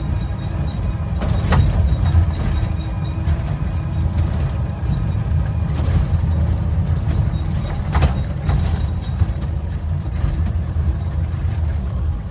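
Urban Triker electric trike running: a steady low rumble with a faint high motor whine, broken by sharp knocks about one and a half seconds in and again near eight seconds. This is the unexplained noise (異音) the owner is asking about.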